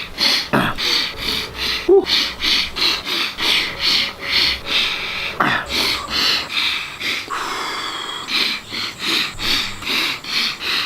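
A man's breathing and mouth noises while eating: fast, rhythmic noisy strokes of sniffing or chewing, about three a second, broken twice by a short grunt that drops in pitch.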